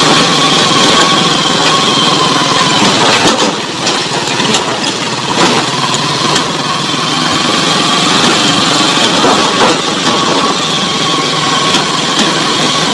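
Small motor vehicle's engine running steadily as it drives along a rough dirt track, with occasional knocks from the ride.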